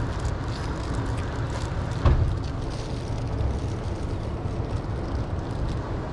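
Wind buffeting the microphone: a steady low rumble, with one sharp knock about two seconds in.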